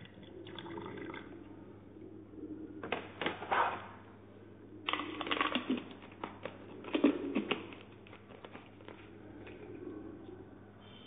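Crackly rustling and clicking of a metal drink can and steel wool being handled and worked by hand, in several short bursts.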